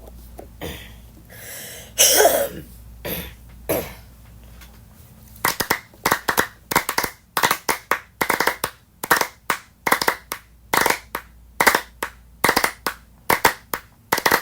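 Hand clapping in a steady beat of about two claps a second, starting about five seconds in, ahead of a sung song; a few rustling handling noises come before it.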